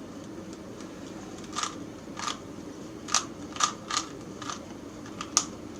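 Plastic Rubik's Cube layers being twisted: a run of about nine short, sharp clicks at uneven intervals.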